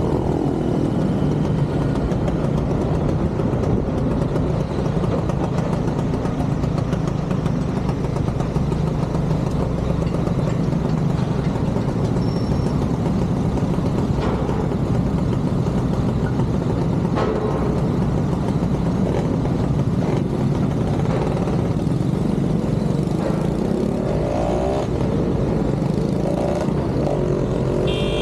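Motorcycle engine running at a steady cruising pace under a constant rush of wind and road noise, its pitch rising and falling near the end.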